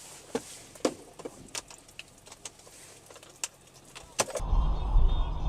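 A few faint, irregular clicks over quiet vehicle background noise, then about four seconds in a loud, steady low rumble of vehicle noise starts abruptly.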